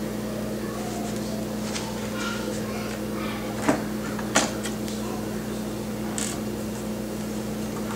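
Small clicks and taps of tiny laptop screws and plastic parts being handled, with two sharper clicks a little past the middle, over a steady low hum.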